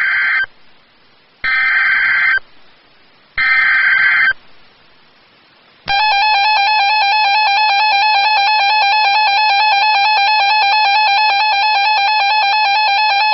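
Emergency Alert System signalling: three roughly one-second bursts of SAME header data tones, which announce a new alert. About six seconds in, the steady EAS two-tone attention signal starts and holds without a break.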